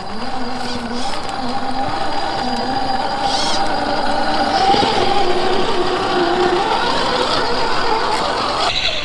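Electric motor and gearbox whine of a 1/10-scale RC rock crawler driving slowly over rocks. The whine wavers in pitch and rises a little about halfway through.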